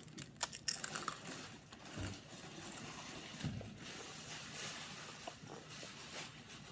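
Quiet room noise with a few faint clicks in the first second and soft low knocks about two and three and a half seconds in.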